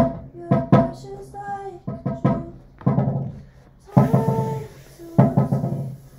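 Someone casually playing chords on an acoustic instrument: about eight struck chords in loose groups with pauses between them, each ringing out briefly and fading.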